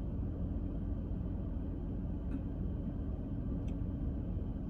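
Steady low rumble of a car heard inside its cabin, the engine or ventilation running, with two faint clicks in the middle.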